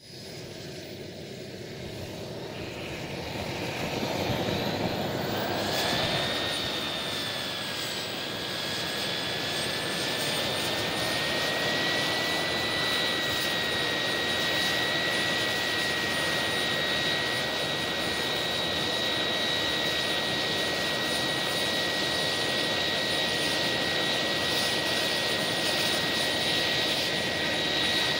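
JetCat PHT3-3 model turboshaft turbine spooling up: a whine that climbs in pitch and grows louder over the first five or six seconds, then settles into a steady high whine over a rushing noise.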